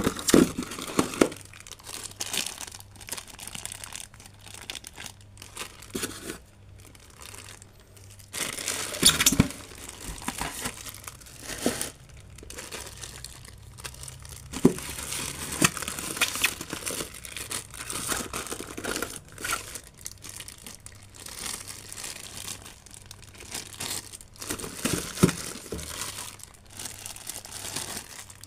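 Clear plastic packaging bags crinkling and rustling as they are handled, in irregular bursts with a few louder, sharper crackles.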